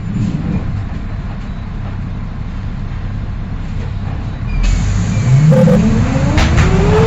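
City bus with a ZF Ecomat 4HP automatic gearbox, running low as it comes down through the gears. About four and a half seconds in, the engine pulls away hard in first gear on the torque converter, and the gearbox's whine climbs steadily in pitch.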